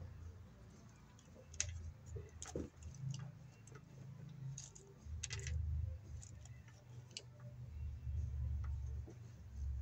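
Scattered sharp clicks and ticks of hand tools and screws being worked at a metal electrical box, over a low rumble of wind on the microphone.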